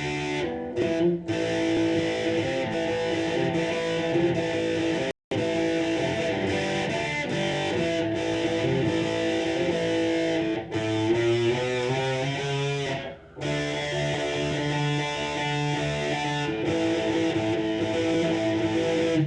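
Fender Telecaster electric guitar played through a Line 6 amp on a distorted metal channel, sustained chords and single notes ringing and changing. The sound cuts out completely for a moment about five seconds in and dips briefly later.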